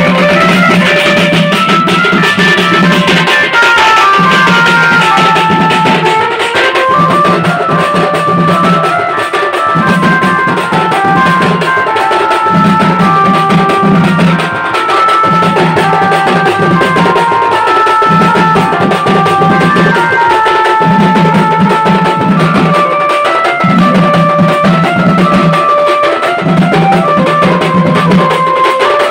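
Band music from a group of shoulder-slung barrel drums beaten together, with a melody line stepping up and down over them and a low part that comes and goes in a regular pattern.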